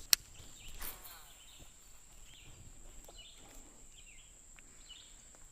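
Faint bird chirping: short high calls repeated every half second or so, over a quiet background with a steady thin high hum. A single click right at the start.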